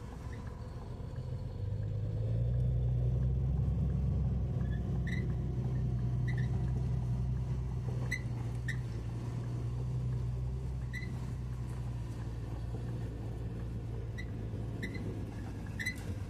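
Heavy truck's diesel engine heard from inside the cab, a low drone that grows louder about two seconds in and then runs steadily as the truck drives and turns. Short light clicks come now and then.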